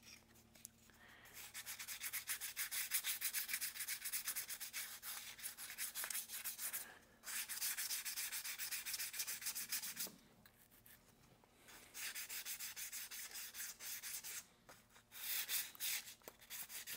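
800-grit sandpaper rubbed by hand over rough primer on small car AC vent bezels: gentle, quick back-and-forth scratchy strokes, several a second, knocking the primer down smooth before the colour coat. The strokes pause briefly about seven seconds in and again for about two seconds around ten seconds in.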